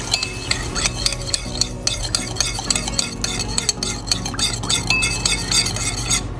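Metal spoon stirring a thin sauce of minced garlic in a ceramic bowl, clinking and scraping against the bowl in quick repeated strokes, with a brief pause about two seconds in.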